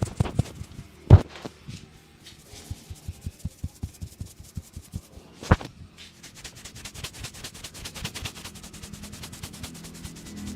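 A barber's hands striking a head in rapid tapping and slapping massage strokes, several a second and speeding up toward the end. Two louder single knocks stand out, about a second in and about five and a half seconds in.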